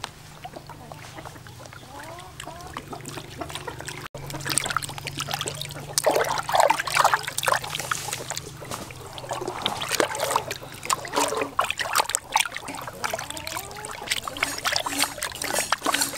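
Water sloshing and splashing in a plastic basin as a whole sea fish is rubbed and turned by hand to wash it. It is quieter at first; from about four seconds in the splashing grows louder and busier, with many small wet slaps and drips.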